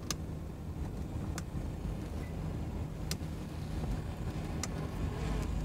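Motorboat engine running at low revs with a steady low hum, the boat creeping forward on the throttles during a slow approach. Four light sharp ticks sound through it.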